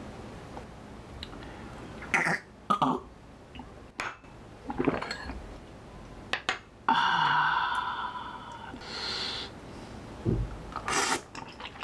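Shot of soju being poured and drunk, with short clinks and knocks of the glass on the table. About seven seconds in comes a long drawn-out voiced 'ahh' breathed out after the shot, followed by breathing.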